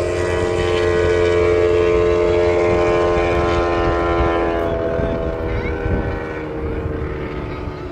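MotoGP racing motorcycle engines running at a steady high pitch, a drawn-out engine note that begins to fall in pitch and fade about halfway through.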